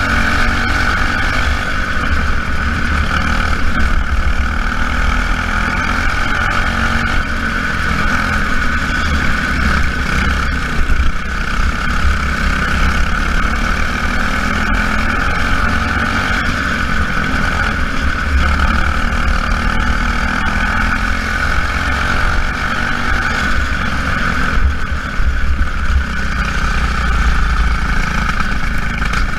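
Small race-car engines running around a track, their pitch rising and falling as the cars accelerate and pass, over a steady high-pitched drone.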